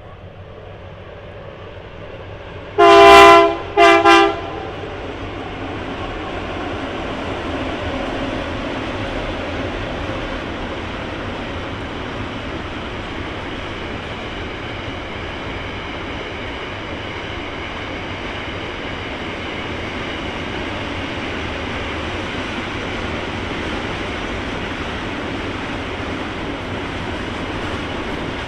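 Diesel locomotive horn sounding one longer blast and then two short ones, followed by the steady rumble and wheel-on-rail noise of the train passing.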